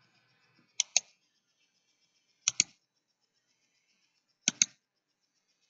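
Computer mouse button clicks, three times, each a pair of sharp clicks in quick succession, with quiet between.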